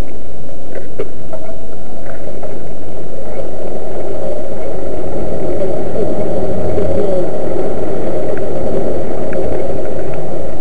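Road traffic with a vehicle engine running, heard from a bicycle as a loud, steady rumble that never lets up.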